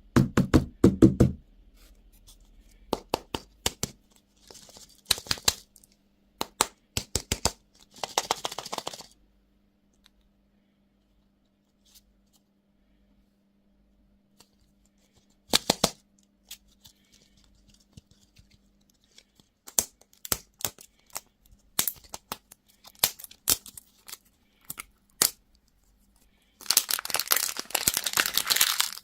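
Candy and toy packaging being handled and opened: scattered sharp clicks and taps of hard plastic, with short bursts of crinkling and tearing wrapper and a longer crinkling burst near the end.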